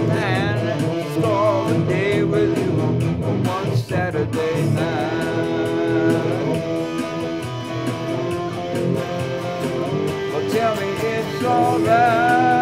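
Electric guitar playing, with bent, wavering notes in the first seconds and a held, wavering note near the end.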